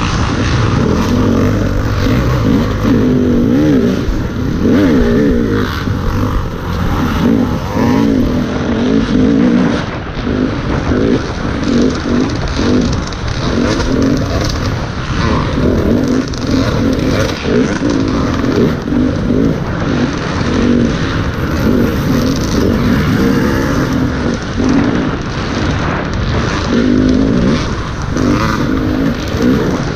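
Motocross dirt bike engine ridden hard, its pitch rising and falling over and over as the throttle opens and closes. Heard close up from a helmet-mounted camera.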